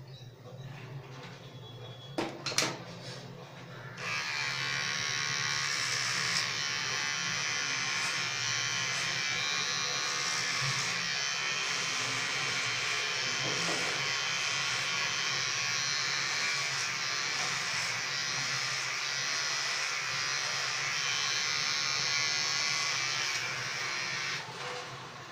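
Electric hair clipper buzzing as it shaves the sides of a head. The cutting buzz starts about four seconds in, after a couple of sharp knocks, holds steady and stops shortly before the end.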